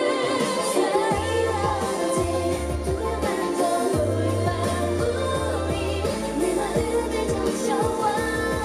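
Female K-pop vocal group singing a pop song live over a backing track with a steady beat and a bass line, amplified through the stage PA.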